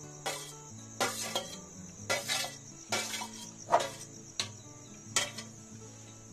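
A steel spoon clinking and scraping against a stainless steel plate and the rim of a steel cooking pot: a series of sharp metallic clinks, about one every half second to second.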